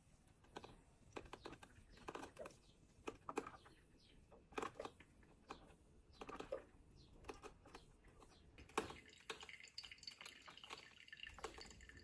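Drip coffee maker brewing: faint, irregular dripping of coffee into its glass carafe.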